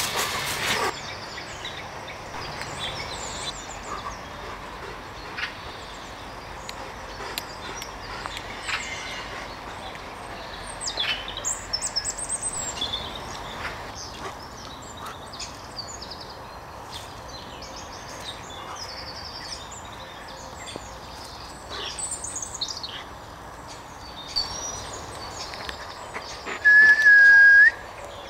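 Small woodland birds chirping and trilling, with light rustling and clicks of movement through dry fallen leaves. Near the end comes one loud, steady whistle note about a second long that rises slightly as it ends.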